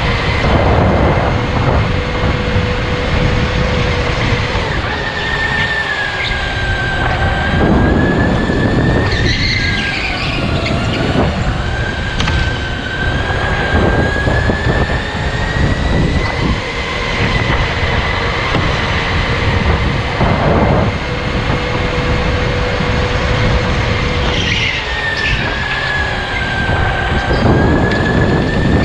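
Electric go-kart at racing pace: a high motor whine that falls in pitch as the kart slows and climbs back as it speeds up, several times over, above a constant rumble of tyres and chassis.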